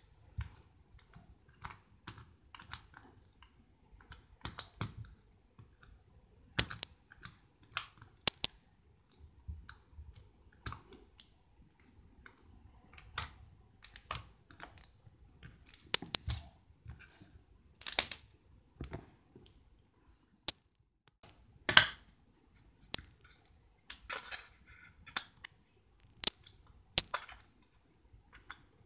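Red slime being kneaded, squeezed and poked between fingers, giving irregular sticky clicks and pops, some much louder than others.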